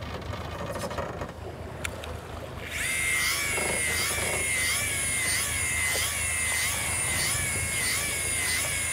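Shimano Beastmaster 1000EJ electric jigging reel's motor starting up about three seconds in and winding line with a high whine that dips and recovers in pitch about twice a second.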